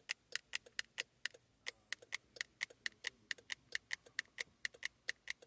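Rapid, fairly even train of sharp ticking clicks, about four or five a second.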